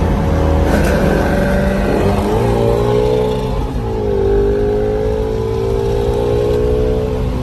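V8 sports car engine under hard acceleration, its pitch climbing through the revs and dropping sharply twice as it shifts up, then climbing steadily again, heard from inside a car at highway speed.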